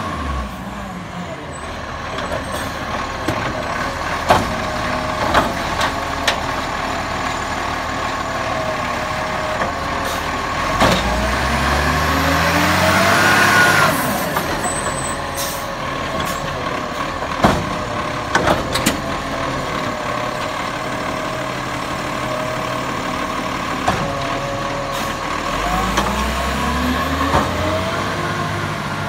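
Iveco side-loader garbage truck running while its automated lifter arm picks up and empties a wheelie bin. The engine revs up and back down twice, about eleven seconds in and again near the end, as the hydraulic arm works, with sharp clanks of the arm and bin in between.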